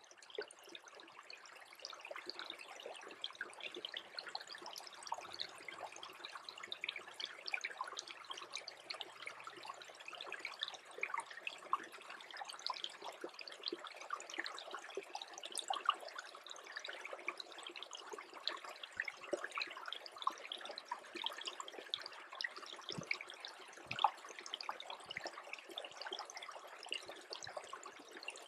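Small stream freezing over, its water trickling in a dense patter of tiny ticks and pops, with a few louder pops here and there.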